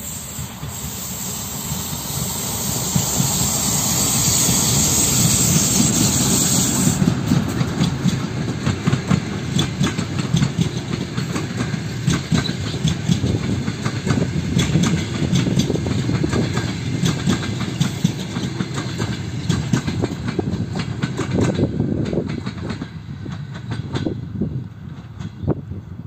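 TEP70 passenger diesel locomotive passing close by with a loud rushing hiss that stops about seven seconds in. Then its passenger coaches roll past with a low rumble and a rapid clickety-clack of wheels over the rail joints, a little fainter near the end.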